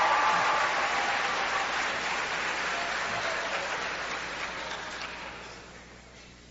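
Audience applauding, dying away steadily and fading out near the end.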